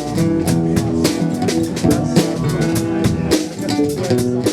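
A live band playing, with a drum kit keeping a steady beat of snare and bass drum under sustained guitar and bass notes.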